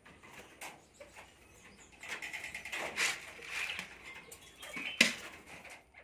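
Young common myna giving harsh, raspy chattering calls for a couple of seconds, with a single sharp knock about five seconds in.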